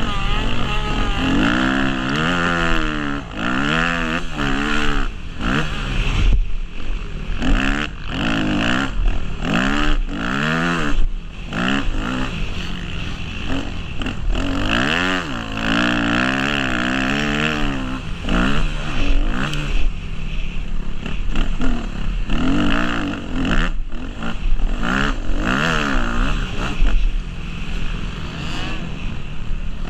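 Yamaha YZ250F motocross bike's four-stroke single-cylinder engine revving up and dropping back over and over as it is ridden hard around a track.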